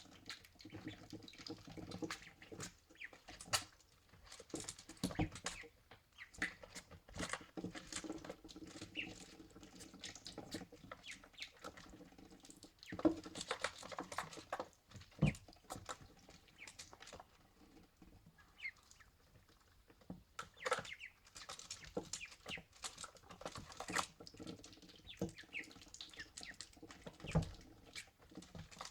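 Ducklings drinking, their bills making many quick clicks and taps in the water, with short sneezes as they clear water from their nostrils and a few soft peeps.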